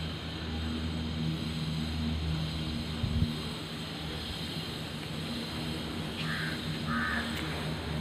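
A low, steady engine hum under outdoor background noise, with a single thump about three seconds in and two short high calls near the end.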